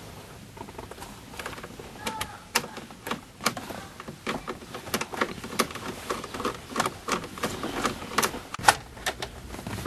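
Irregular sharp clicks and ticks, a few a second, of a Phillips screwdriver turning a screw into the DVD player's mounting inside a plastic trim panel.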